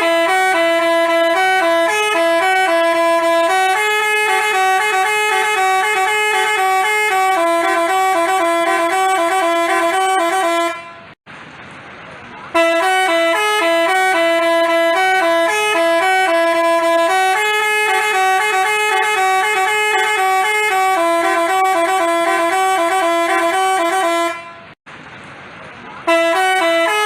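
Multi-tone telolet basuri bus horn playing its melody: a phrase of stepping notes lasting about twelve seconds, a short break near 11 s, the same phrase again, another break near 25 s, and the tune starting a third time near the end.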